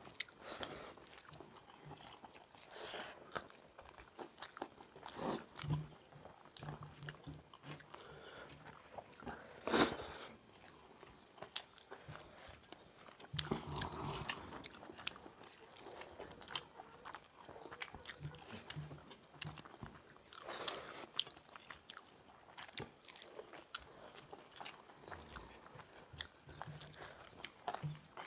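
People eating rice and curry by hand: chewing and biting sounds with small clicks of fingers working the food on steel plates, and one sharper, louder click about ten seconds in.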